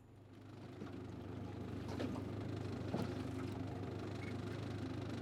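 Small motorboat's engine running steadily, heard from aboard with a low hum under a wash of hull and water noise; it swells in over the first two seconds. A couple of light knocks come about two and three seconds in.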